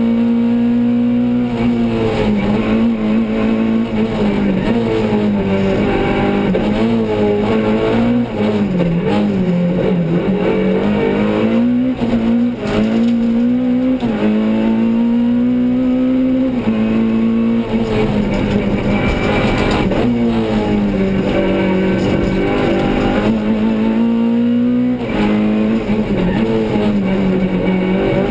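Renault Clio Sport rally car's engine heard from inside the cabin, pulling hard at high revs. Its pitch climbs and then falls sharply several times as the driver shifts gear or lifts between corners.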